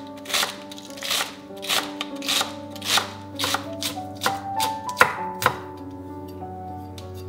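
Chef's knife chopping green onions on a wooden cutting board: sharp knocks about twice a second that stop a little over halfway through, over background music.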